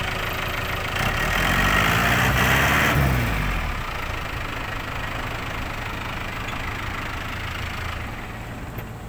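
Kubota mini excavator's diesel engine running while its hydraulic arm lifts a heavy load. About a second in it rises in pitch and gets louder for a couple of seconds, then settles back to a steady run and eases off near the end.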